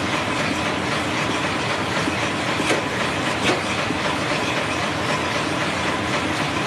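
Paper bag making machine running at speed: a steady, fast mechanical clatter as the bags are formed and fed out onto the stack, with two louder clicks about halfway through.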